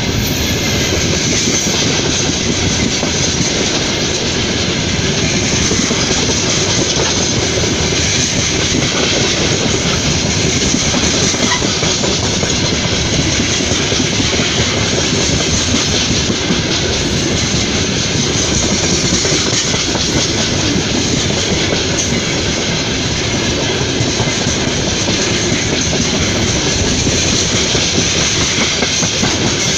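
Freight train's open-top wagons rolling past at close range: a loud, steady noise of steel wheels running on the rails, with no break or change.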